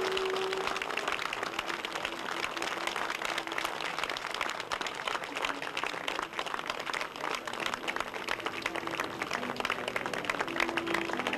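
Audience applauding: a dense, steady patter of many hands clapping, with soft held music notes underneath.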